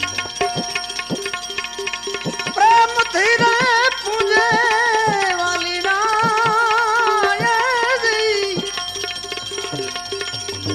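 Instrumental interlude of a live Gujarati devotional bhajan: tabla strokes, the bass drum's notes gliding downward, with a wavering melody line entering about three seconds in and dropping out near nine seconds.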